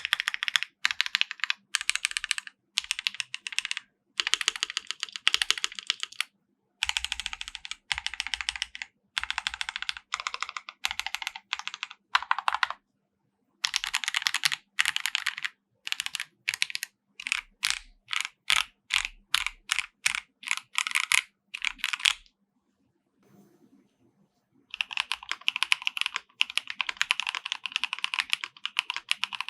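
KBD67 Lite R3 mechanical keyboard with a polycarbonate plate being typed on in fast bursts of keystrokes. In the middle comes a run of separate, evenly spaced strokes, about two or three a second, and about two-thirds of the way through the typing stops for about two seconds.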